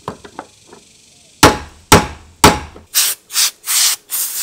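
Hammer striking a socket extension held against a fuel pump lock ring to turn it loose: a few light taps, then three sharp blows about half a second apart. Near the end come several short hissing bursts.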